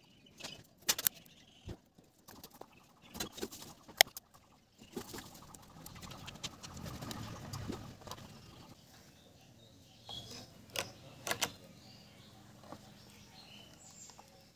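Handling noise as wires are twisted together and a taped battery pack is worked into a thin sheet-metal box: sharp clicks and knocks about a second in, again around three to four seconds, and near eleven seconds, with a softer scuffling rustle in between.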